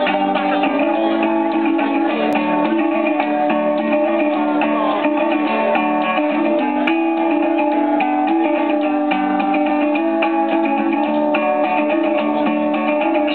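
A band playing live, led by strummed guitars, at a steady level throughout.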